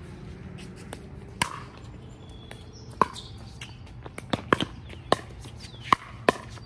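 Pickleball rally: paddles strike the hard plastic ball in a string of sharp pops, spaced roughly a second apart, with several coming quickly together about two-thirds of the way in.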